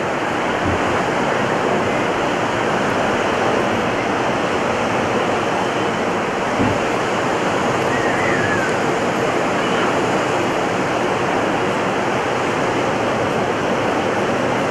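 Ocean surf breaking and washing up the sand, a steady loud rush.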